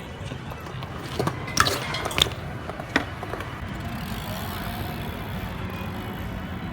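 A few sharp metallic clinks and knocks over a steady low rumble, the loudest about two seconds in and again near the middle.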